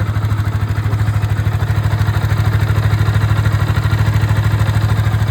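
Yamaha R15 V3's 155 cc single-cylinder engine idling steadily with an even pulse, carrying the slight noise the owner wants diagnosed; its cause is not known.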